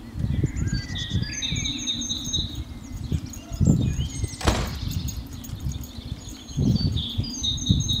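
Songbirds singing in the garden: phrases of quick repeated high notes, with a low irregular rumble underneath and one sharp click about halfway through.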